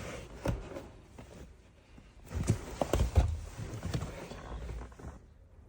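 Scattered knocks and clunks of hand work on parts in a car's shifter opening. There is one knock about half a second in, then a cluster of them between about two and a half and three and a half seconds in, the loudest just after three seconds.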